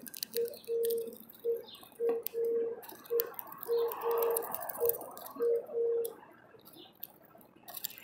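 A low, steady-pitched note repeating in short and long pulses, roughly once a second, stopping about six seconds in, with light clicking throughout.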